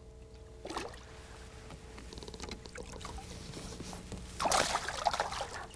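Water splashing as a hooked smallmouth bass thrashes at the surface beside the boat while it is being landed by hand: a short splash about a second in and a louder, longer splash near the end.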